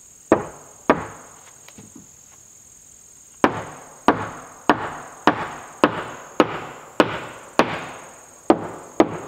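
Hammer driving nails into rough-sawn wooden wall sheathing boards: two blows, a pause of a couple of seconds, then about ten steady blows a little under two a second.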